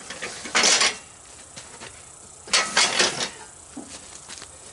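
Metal scraping and clattering in two bursts, a short one about half a second in and a longer one near the middle, as a part is pulled out of a riding mower being scrapped.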